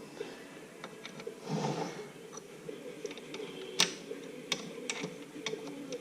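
Sharp metallic clicks and ticks of a spanner wrench turning the threaded bearing adjuster nut on a Ford 9-inch differential carrier, the loudest about four seconds in, with a few more after it.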